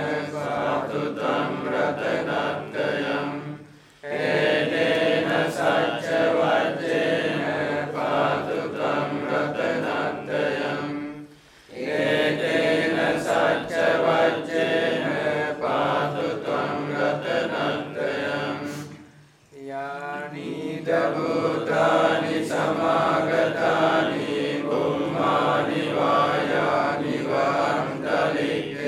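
Buddhist monks and lay followers chanting Pali devotional verses together in a steady recitation. The chant breaks off briefly about four seconds in, again near the middle and again about two-thirds through.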